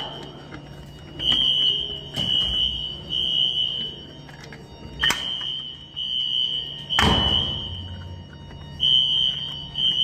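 Siemens ZH-MC-R fire alarm horns sounding the temporal-three evacuation pattern, a steady high tone in three short blasts followed by a pause, over and over. A sharp click about five seconds in and a louder knock about seven seconds in come from the Siemens HMS-D pull station being opened and handled for reset.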